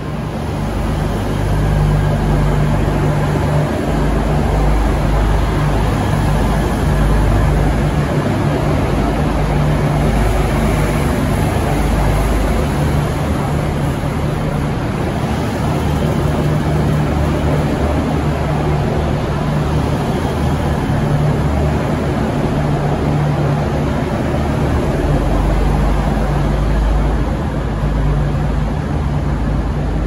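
V/Line VLocity diesel multiple unit (two coupled sets) pulling away from the platform and passing close by. Its underfloor diesel engines drone loudly under power, along with steady wheel and rail noise, the low drone swelling and easing as the cars go by.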